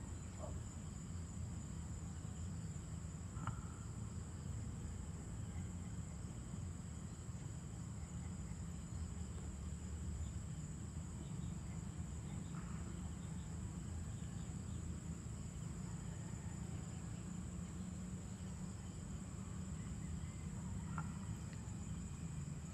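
Evening insects keeping up a steady high-pitched drone over a low, steady rumble, with a few faint short chirps about three times.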